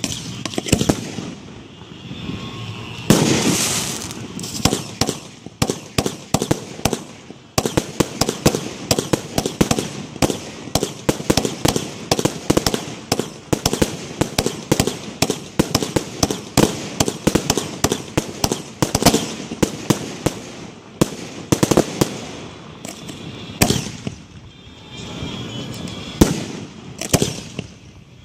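Aerial fireworks display: shells launching and bursting overhead in quick succession, a long run of sharp bangs and crackles that is densest through the middle.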